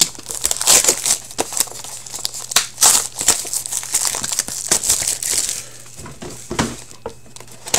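Plastic wrapping crinkling and tearing in irregular crackles as a sealed box of hockey cards is unwrapped and opened.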